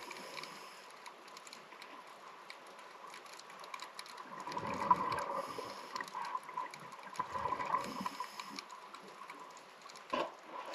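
Scuba regulator breathing heard underwater: two gurgling surges of exhaled bubbles, each about a second and a half long, with short hisses between them, over scattered faint clicks. A sharper click comes near the end.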